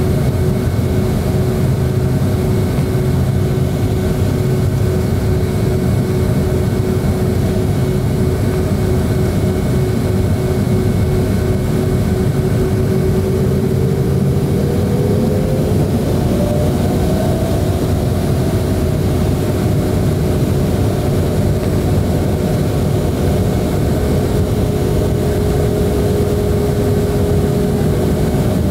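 A Boeing 757-200's Pratt & Whitney PW2000 turbofan engines running steadily at low power as the plane taxis, heard from inside the cabin. There is a deep rumble under a steady whine. About halfway through, the whine rises in pitch and then settles a little higher.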